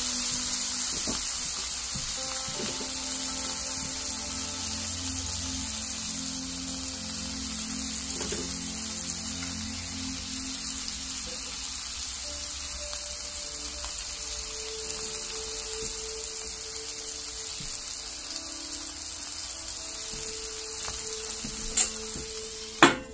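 Food frying in a cast iron skillet, a steady sizzle that slowly dies down. Near the end come two sharp clicks about a second apart, the second louder.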